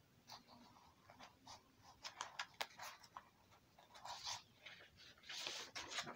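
Faint paper rustling and scratching: a string of short rustles, busiest about two to three seconds in, with two longer rustles near the end, as the sheet of drawing paper is handled.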